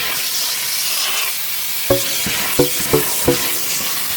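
Vacuum cleaner running, sucking dirt out of a car's interior with a steady hiss. About two seconds in come four short knocks in quick succession, as debris or the nozzle strikes.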